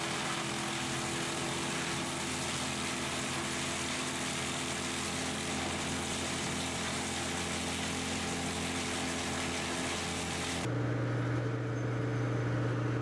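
Bandit 1890XP wood chipper's engine running steadily, with a steady hiss over it. About ten and a half seconds in, the sound changes abruptly to a deeper, steadier engine hum.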